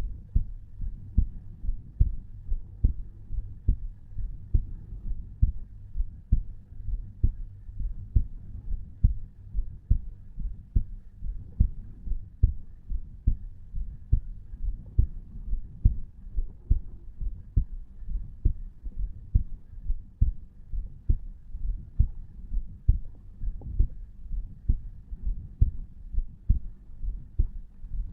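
A man's resting heartbeat heard at the tricuspid valve area: steady, regular lub-dub thumps at about 60 to 70 beats a minute over a low hum.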